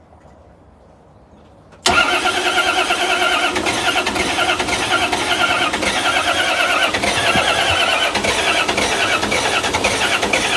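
A Volvo Penta KAD 44 marine diesel is started on a new starter about two seconds in and keeps running loudly with a high whine, which the owner puts down to the supercharger.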